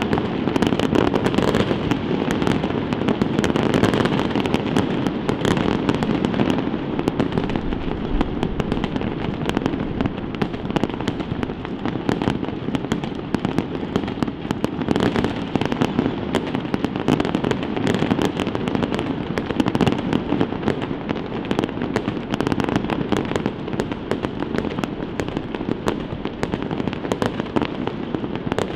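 Aerial fireworks bursting in a dense, continuous barrage of pops and crackles over a steady rumble, easing slightly toward the end.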